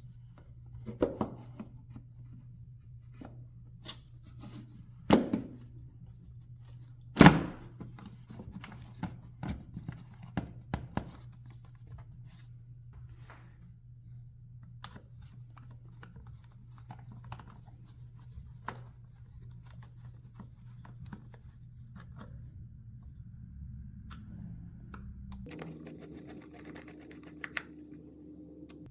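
Plastic air filter housing and intake parts being handled and fitted by hand: a few sharp knocks and thunks in the first eight seconds, the loudest about seven seconds in, then scattered light clicks and rattles, over a steady low hum.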